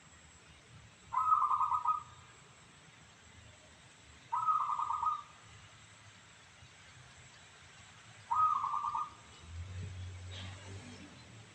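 Zebra dove (perkutut) cooing: three short, rolling coo phrases, about three to four seconds apart. A low hum and a faint click come in near the end.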